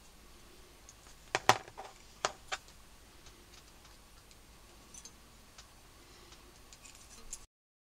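Light metallic clicks and taps as aluminium accordion reed plates are picked up, set down and probed with a thin steel tool to check reed tip height, with a sharper cluster of clicks about a second and a half in. The sound cuts off suddenly near the end.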